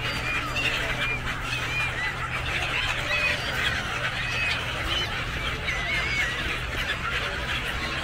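A flock of gulls calling: many short, overlapping squawks throughout, over a steady low hum.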